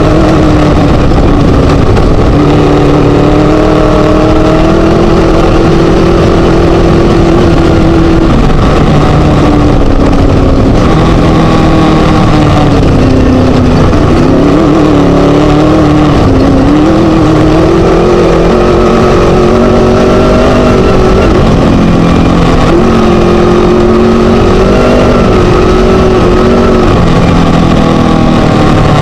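Class 1 desert race buggy's Scat engine running hard, its pitch rising and falling with throttle and gear changes, over a constant rushing noise. Recorded very loud.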